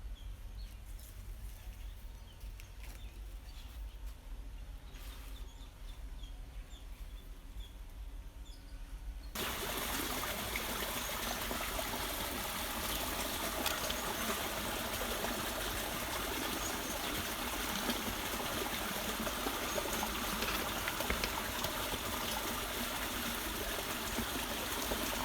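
Outdoor ambience: faint bird chirps over a low hum. About nine seconds in, it switches abruptly to a steady rushing noise, like running water.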